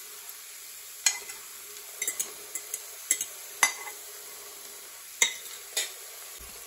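Metal spoon clinking and scraping against a ceramic bowl, about nine sharp irregular clinks, as beaten egg is tipped into an electric multicooker's hot pot on sauté. Under it the egg and onion sizzle steadily as the egg starts to scramble.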